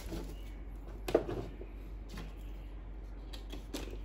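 Light clicks and knocks of small tools and items being handled and set down, the loudest about a second in and a few quick ones near the end.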